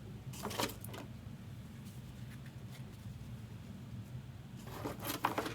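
Trading cards being handled, with a short rustle of card stock about half a second in and again near the end, over a steady low hum.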